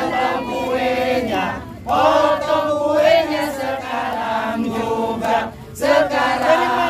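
A crowd of voices singing together in unison, with brief breaks between phrases about two seconds in and again just after five seconds.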